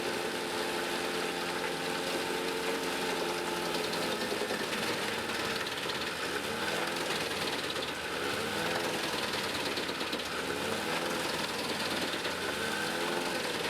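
Tractor-powered Gandini wood chipper running, with the engine note steady at first. In the second half the pitch rises and falls over and over, about every two seconds.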